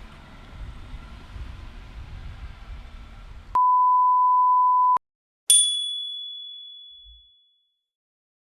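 Low rumbling background noise, then about three and a half seconds in a steady 1 kHz electronic beep tone that holds for about a second and a half and cuts off abruptly. After a brief gap a single high, bright ding rings out and fades over about two seconds.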